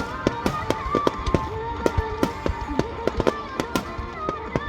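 Aerial fireworks bursting in quick, irregular succession, several sharp bangs a second, with music playing underneath.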